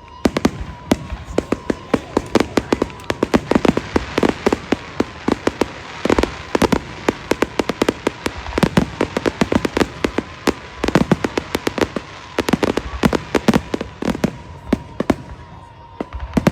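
Fireworks display: a dense, irregular barrage of sharp bangs and crackling reports, several a second, with louder booms among them.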